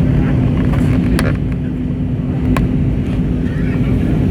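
Airbus A320neo cabin noise in flight: the steady rumble of the engines and airflow with a constant low hum, and a couple of small clicks from the cabin.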